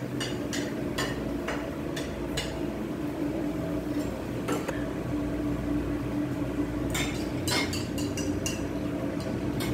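Scattered clinks and taps of metal tongs on a tabletop grill, chopsticks and dishes, over a steady low background hum. The clinks come in clusters, thickest near the start and again about three-quarters of the way through.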